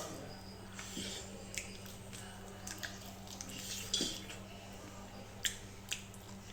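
Close-up eating sounds: wet chewing and mouth clicks and smacks, scattered irregularly, over a steady low hum.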